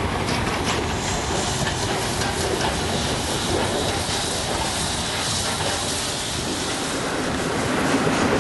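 Passenger train running along the track, heard from aboard: a steady rumble and hiss of wheels on rails with light rail clatter.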